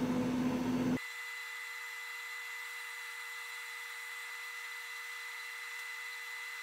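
Steady machine hum with a high whine and hiss; about a second in the low rumble drops out and the hum turns thinner and higher.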